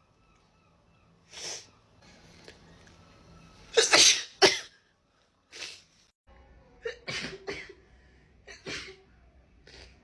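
A woman sneezing over and over in a sneezing fit, about eight sneezes, the loudest two coming in quick succession about four seconds in.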